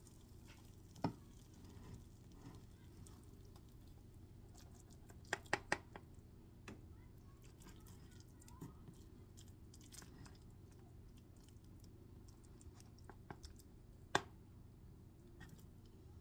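Plastic spatula cutting into a cheesy casserole and scraping and knocking against a glass baking dish: faint soft squishing with a few sharp clicks, three in quick succession around five and a half seconds and a single one near fourteen seconds.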